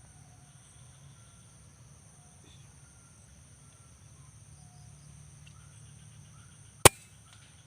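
Steady high insect buzzing with faint bird calls, then about seven seconds in a single sharp shot from an air rifle fired at a spotted dove.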